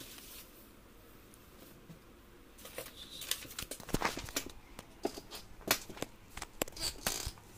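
Rustling of a paper instruction sheet and light clicks of handling, starting about two and a half seconds in after a quiet stretch.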